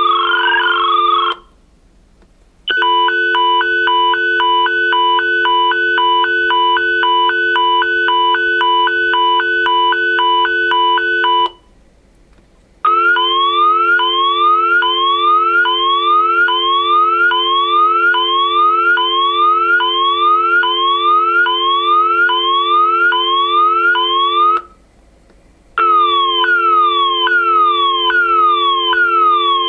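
Landline phone sounding a steady dial tone mixed with a loud, high-pitched, siren-like tone that keeps changing pattern: a warble, rapid pulsing beeps, repeated rising sweeps, then repeated falling sweeps. It breaks off for about a second three times.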